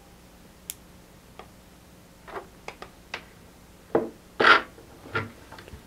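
Hands handling a handheld radio and its packaging: scattered light clicks and taps with a few short rubs, the loudest a brief rustle about four and a half seconds in.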